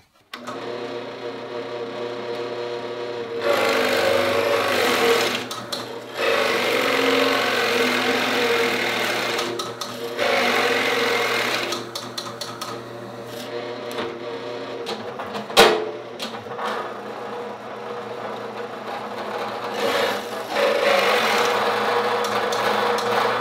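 A floor drill press motor starts and runs steadily while a large 2-1/8-inch Forstner bit bores into wood. The cutting noise swells and drops in several long pushes as the bit is fed down, with one sharp knock a little past the middle. The dull bit loads the motor, and it bogs down.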